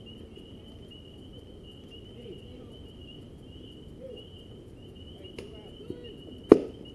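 A single sharp crack as a pitched baseball reaches home plate, about six and a half seconds in, over a steady high pulsing chirr of insects and faint distant voices.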